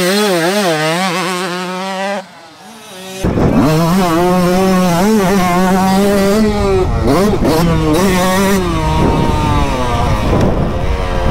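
Motocross bike engines revving hard, the pitch rising and falling with throttle and gear changes. The sound dips briefly about two seconds in, then returns louder, ridden onboard a Yamaha YZ two-stroke.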